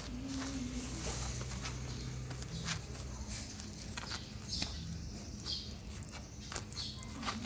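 Light scattered taps, knocks and shuffles as a baby monkey crawls over a plastic mat and bumps plastic toys, with a few short high chirps in the second half.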